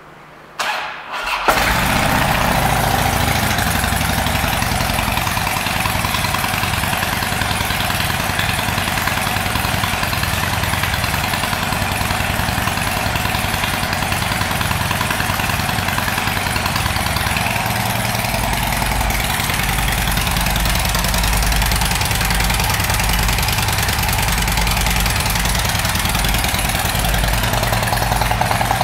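2007 Harley-Davidson Dyna Wide Glide's Twin Cam 96 V-twin started on the electric starter, catching about a second and a half in, then idling steadily and loudly. The exhaust note is one the seller takes for baffles that have been worked on or even pulled out.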